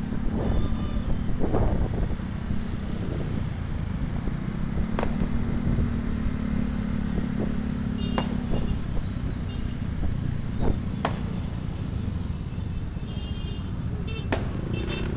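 Honda Vario 125 scooter's single-cylinder engine running steadily under way in city traffic, with road and wind noise. A few sharp cracks are scattered through.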